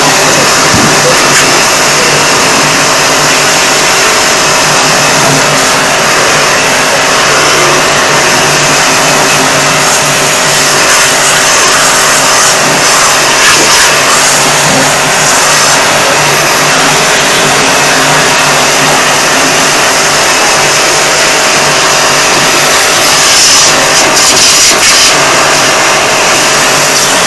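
Electric pressure washer running steadily, its pump motor humming under the loud hiss of the water jet spraying onto the aluminium fins of an air conditioner's evaporator coil.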